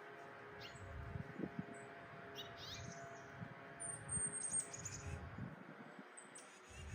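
Small birds chirping: scattered clusters of quick, high chirps, with the busiest burst about four seconds in, over a faint low rumble.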